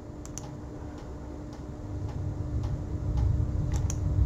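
Computer mouse clicking: a pair of sharp clicks near the start and another pair near the end. Under them run faint even ticks about twice a second, a steady low hum, and a low rumble that swells in the second half.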